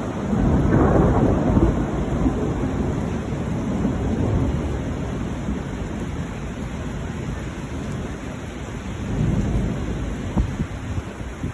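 Thunder rumbling over steady rain, with the loudest rumble about a second in that slowly fades, and another swell near the end.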